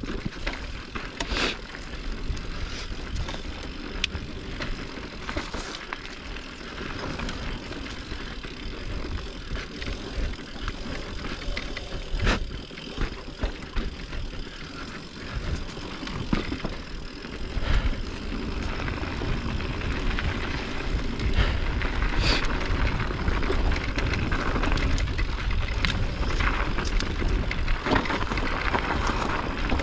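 Mountain bike being ridden on a dirt trail: steady tyre and trail noise with scattered sharp clicks and knocks from the bike over bumps. The low rumble grows louder from about halfway through.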